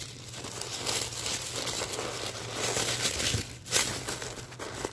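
White packing paper crinkling and rustling as it is handled and unwrapped, with a louder crackle near the end.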